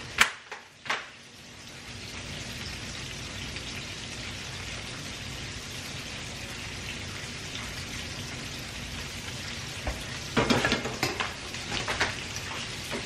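Chicken frying in a pan of hot oil: a steady sizzling hiss. A couple of sharp clicks right at the start and a few louder knocks and crackles about ten seconds in.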